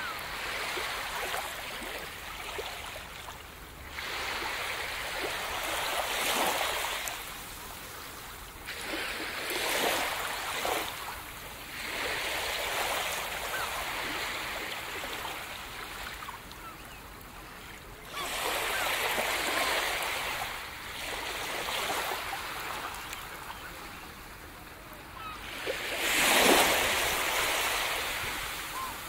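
Gentle surf: small waves breaking and washing up a sandy beach, swelling and fading every few seconds.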